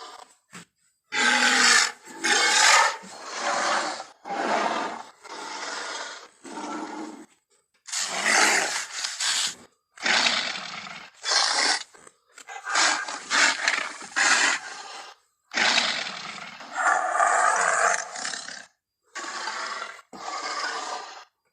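Kong's giant-gorilla roar and grunt sound effects from the 2005 King Kong film, played as a series of about fourteen separate calls, each half a second to a second and a half long, with short gaps between them.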